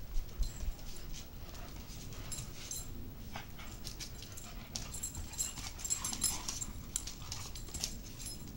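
Two Scottish deerhounds play-fighting on patio paving: scuffling with many short clicks and snaps from claws and jaws, thickest in the second half.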